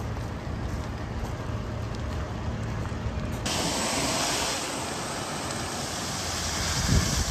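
A wildfire burning roadside brush. At first there is a low rumble with a steady engine hum from the fire engines and faint crackles. About three and a half seconds in it switches to a loud rushing hiss of flames and wind, with a low thump near the end.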